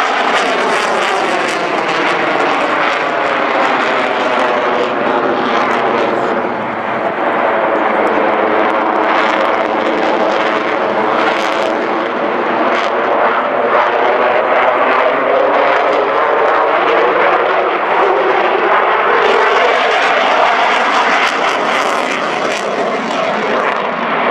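Eurofighter Typhoon jet fighter's twin EJ200 turbofans, loud and continuous as the jet flies display manoeuvres overhead, with a swirling, phasing sweep in the tone as its distance and angle change.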